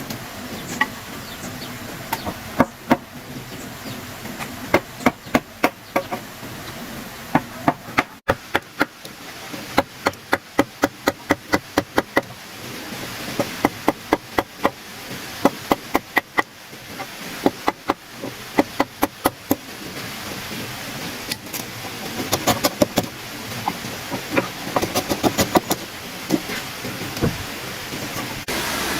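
Hammer blows on wood, struck in quick runs of several blows a second with short pauses between the runs.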